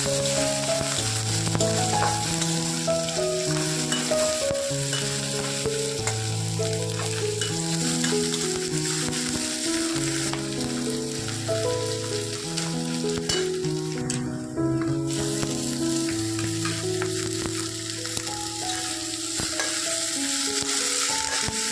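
Food frying in hot oil in a pan, a steady sizzle that drops out briefly about two-thirds of the way through, under background music with a slow melodic tune.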